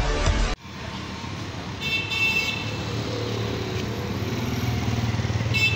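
Motorcycle engine running close by on a city street. A vehicle horn toots twice, briefly about two seconds in and again near the end. A moment of electronic music cuts off suddenly at the start.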